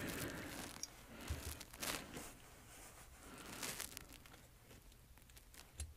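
Faint rustling of a paper shop towel and a few light clicks as a small carburetor body is picked up and handled on the workbench.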